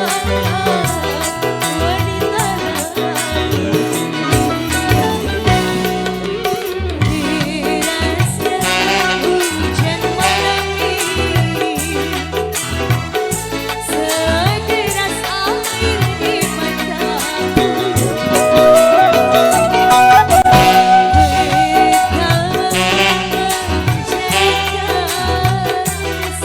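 Indonesian dangdut-style music: a hand-drum pattern in the kendang kembangan style under a wavering melody line, which swells and is loudest about two-thirds of the way through.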